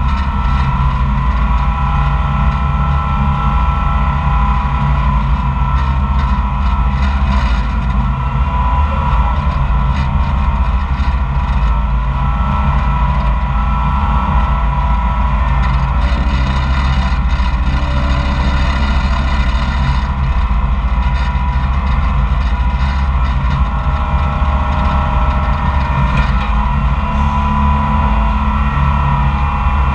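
Koehring 440 dragline's engine running steadily under load, heard close up from the operator's seat, while the bucket is dragged in and hoisted.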